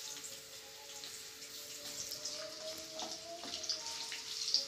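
Sliced onions sizzling in hot oil in a nonstick frying pan: a steady crackling hiss, with the spatula stirring through them.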